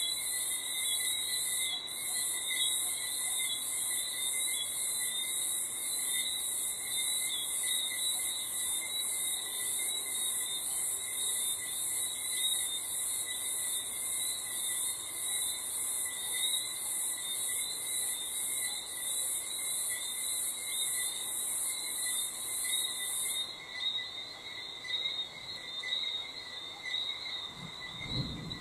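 A night chorus of crickets chirring: a very high, rapidly pulsed trill is the loudest layer and stops about five seconds before the end, while lower, steadier insect trills carry on throughout. A brief low rumble comes in at the very end.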